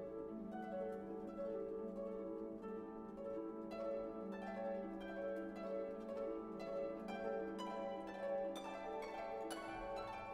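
Instrumental background music: plucked string notes over held tones, the plucked notes coming more often from about four seconds in.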